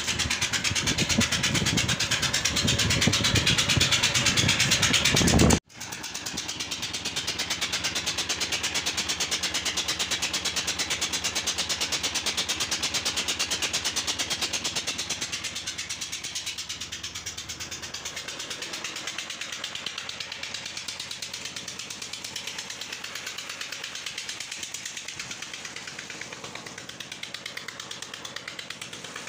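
Loud wind rumble on the microphone for about the first six seconds. After an abrupt cut comes the steady running of a tubewell pump with water gushing, a little quieter in the second half.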